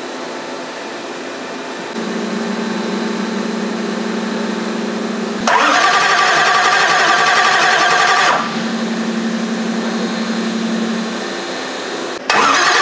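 SMX racing engine being cranked over by its starter on its first start-up. A steady hum is followed about five seconds in by a loud, steady cranking whine that lasts about three seconds and then stops. The hum returns, and a second crank begins near the end.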